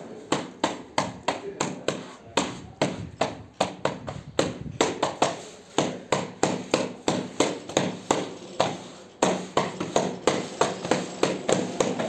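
A flat hand float tapping sheets of glass mosaic pool tile to bed them into the tile adhesive: a quick run of sharp taps, about three a second, with a couple of brief pauses.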